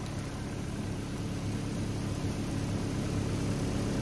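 Excavator engine idling steadily, an even low hum that grows slightly louder toward the end.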